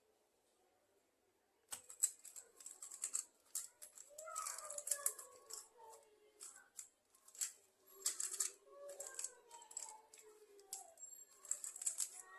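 A 3x3 speedcube being turned fast by hand, its plastic layers clicking and rattling in quick irregular bursts that start about two seconds in.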